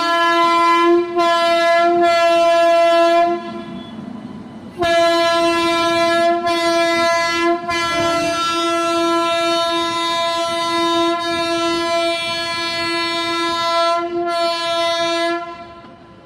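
WAG-9HC electric locomotive's horn honking on one steady pitch: short blasts with quick breaks, a pause of about a second and a half, then a long blast of about ten seconds broken only briefly, cutting off near the end.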